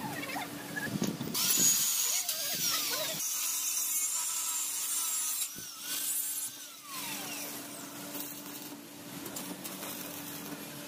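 Handheld angle grinder cutting mild-steel square tube in two short bursts, the second ending in a falling whine as the disc winds down, over a steady low hum.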